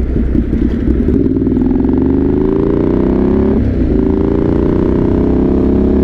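Motorcycle engine accelerating, its pitch rising, with a short drop about three and a half seconds in as it shifts up a gear, then rising again; a steady low rumble of wind and road noise runs underneath.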